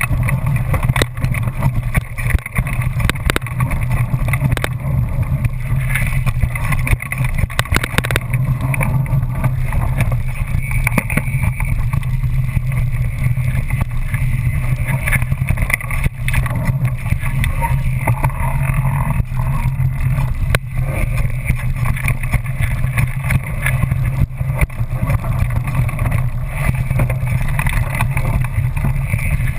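Wind rumbling over a mountain bike's mounted action camera while riding a rough dirt trail, with a constant patter of small rattles and knocks from the bike and its knobby tyres over stones and ruts.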